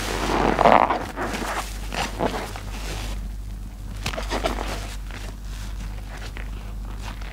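Soap-soaked foam sponges squeezed and kneaded by rubber-gloved hands in a basin of sudsy water: wet squelching and sloshing, loudest in the first second, then irregular softer squishes and crackling suds.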